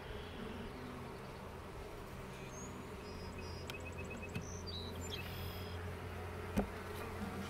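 Honeybee colony buzzing as a steady, even hum over an open hive, with birds chirping briefly in the middle and a single sharp knock near the end.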